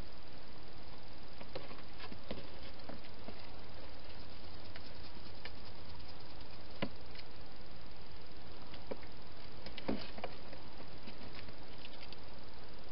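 Hedgehog eating from a bowl inside a plastic feeding box: scattered small clicks and knocks over a steady hiss, the loudest about ten seconds in.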